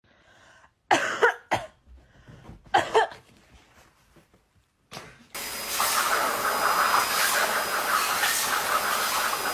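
Two short, loud cough-like sounds about two seconds apart. Then a high-velocity pet grooming dryer starts blowing and runs steadily from about five seconds in, a loud rushing hiss with a thin high whine.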